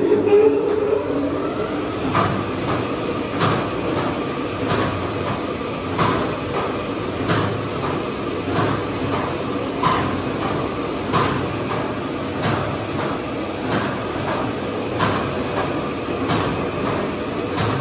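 Steady mechanical rumble with a sharp clack repeating evenly about every 1.3 seconds, like machinery turning over.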